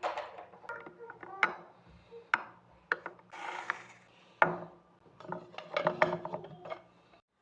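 Household objects being handled and put away: a run of irregular clicks, knocks and scraping rubs, with a loud knock about four and a half seconds in.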